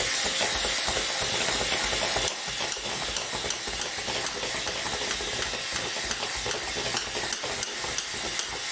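Electric hand mixer with twin beaters running steadily in a bowl, whisking eggs and sugar until pale and fluffy; the level drops slightly about two seconds in.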